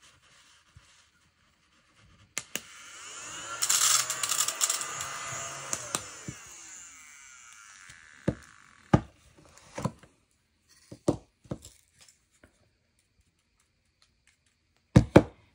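Plastic diamond-painting drill pickup tool scraping and sliding over the plastic-covered canvas for a few seconds, then a series of light, sharp plastic clicks and taps, two close together near the end.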